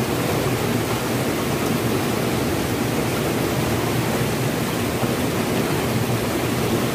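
A swollen, muddy river rushing fast past rocks and a wading man's legs: a steady, loud wash of turbulent floodwater. The river is rising after rain.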